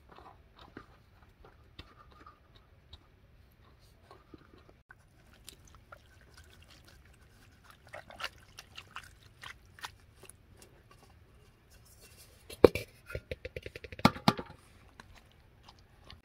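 Perforated steel skimmer and metal bowl clinking and scraping in scattered taps as rice and fried meat are spooned and poured out. About three-quarters through comes a quick run of loud metal-on-metal clatter.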